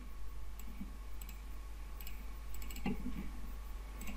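Faint computer mouse clicks, several scattered through, over a steady low electrical hum.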